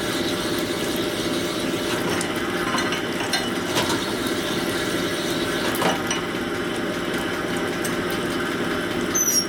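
Honing machine running steadily while a part is stroked back and forth on its spinning mandrel to hone a bore to size, with a few light metallic clicks.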